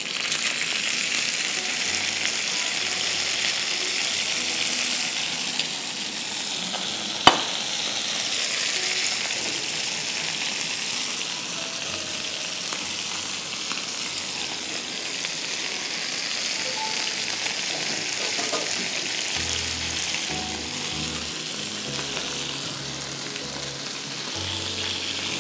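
Hot oil sizzling steadily in a cast-iron skillet as a slab of whole fried fish is slid back in to cook its second side. The sizzle starts loud as the fish goes in, and there is one sharp click about seven seconds in.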